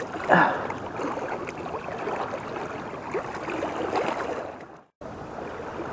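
An undersized walleye let go into shallow river water, with a splash just after the start, then the steady wash of flowing water against the rocks. The sound cuts out for a moment near the end.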